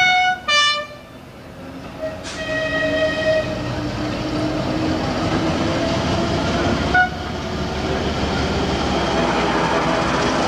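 Diesel locomotive horn giving two short blasts right at the start, then a quieter held horn note about two seconds in and a brief peep about seven seconds in. Under the horn, a Class 08 diesel shunter's engine runs and its wheels click over the rail joints as it propels a coach past at low speed, growing a little louder near the end.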